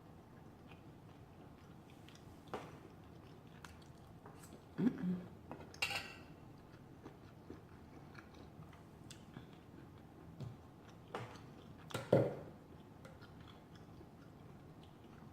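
A person chewing food close to the microphone: soft mouth and chewing noises, with a few short louder smacks scattered through, the loudest about five and twelve seconds in.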